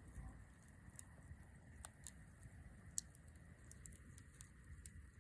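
Wood campfire crackling faintly: scattered, irregular pops and snaps, the sharpest about three seconds in.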